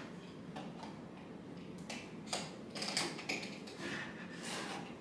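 Fingers handling and picking at a doll box's clear plastic blister front: scattered small clicks and crinkles, coming more often in the second half.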